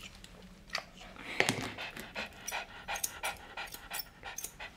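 A small dog panting in quick, short breaths, starting about a second in.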